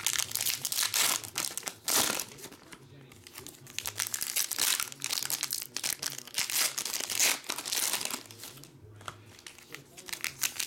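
Foil trading-card pack wrapper crinkling in the hands as it is torn open at the top. The crackling comes in irregular bursts with short lulls.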